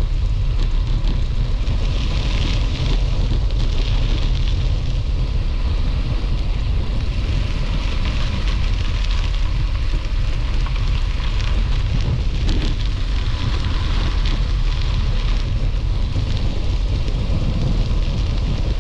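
Wind buffeting the microphone of a moving action camera: a steady low rumble with a constant crackling hiss over it.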